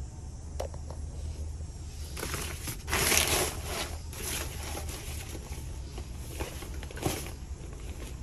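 Plastic garbage bags and sheeting crinkling and rustling as a hand rummages through them, loudest about three seconds in and again briefly near the seven-second mark, over a steady low hum.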